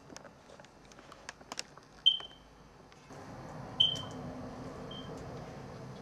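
A few faint clicks and taps, then three short high-pitched beeps, the first two loud with a brief fading ring and the third fainter. A steady low hum comes in about halfway through.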